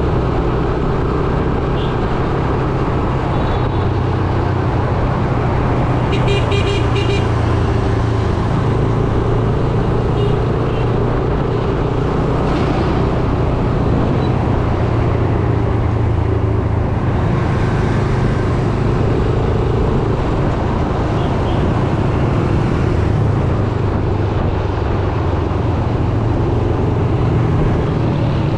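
Yamaha YBR 125G's single-cylinder four-stroke engine running steadily under way in traffic, with road noise. Other vehicles' horns toot several times, the loudest about six and a half seconds in.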